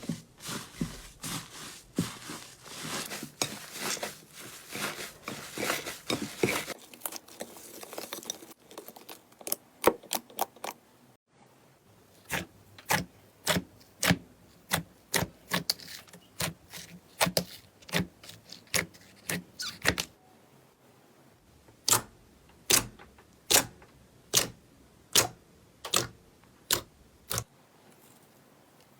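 Slime being squeezed and pressed by hand, crackling densely at first, then making a series of sharp pops and clicks, about two a second, with a short pause between two runs of pops.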